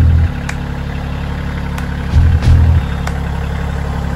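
Kioti CK2610 compact tractor's three-cylinder diesel engine running steadily as the tractor drives, with two short louder low surges, one at the start and one about two seconds in, and a few sharp clicks.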